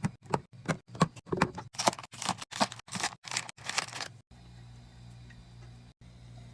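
Packaging and containers being handled and set down: a quick run of short clicks and rustles, about three a second, that stops about four seconds in, leaving a faint low hum.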